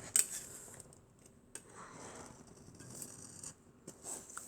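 Soft scraping and rubbing of a tool or fingers on a smartphone's glass back and its stuck adhesive, with one sharp click just after the start.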